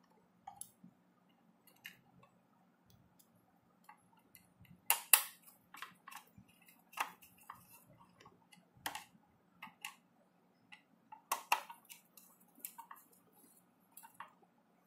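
Irregular clicks and taps of small metal parts and tools as the power cable's wires are fitted to a dry electric iron's terminals, with the loudest knocks about five seconds and eleven seconds in.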